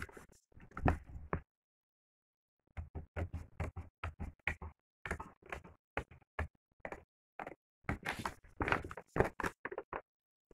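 Scissors snipping through paper while the sheet is handled and rustled, in short irregular snips and crinkles with a brief dead-silent gap about a second and a half in.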